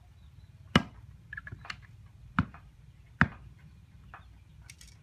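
A machete chopping thin green stalks on a block: three sharp chops, about a second in, in the middle, and just after, with lighter knocks and taps of the blade in between.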